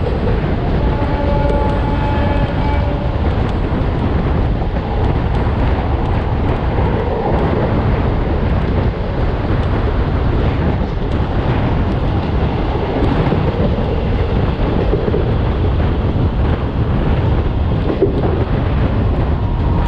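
Train running at speed: a steady loud rumble of wheels on the rails with wind buffeting. A train horn sounds for about two seconds near the start.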